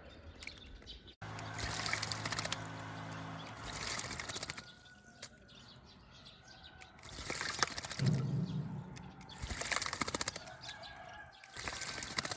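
A pet myna bathing, fluttering its wings in shallow water and splashing in several bouts with short pauses between.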